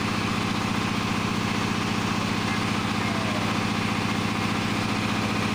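Jiangdong ZH1135 37 HP single-cylinder diesel engine of a generator set running steadily, with a rapid, even beat of firing strokes.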